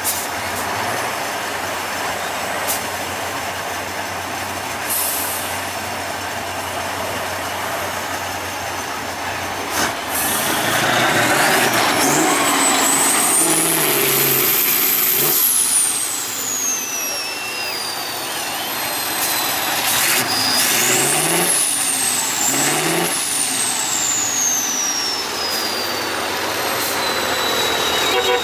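Tatra 815 6x6 trial truck's diesel engine working under load in deep mud. It runs steadily at first, then is revved hard twice, about ten seconds in and again about twenty seconds in, each time with a high whistle that rises and falls with the revs.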